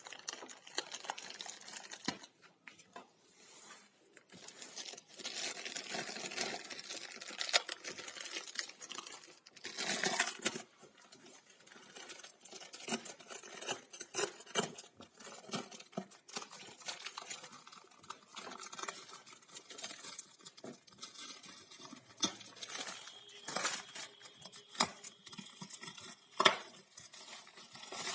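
Books and their packaging being handled and unpacked: rustling, crinkling and tearing, with scattered clicks and light knocks.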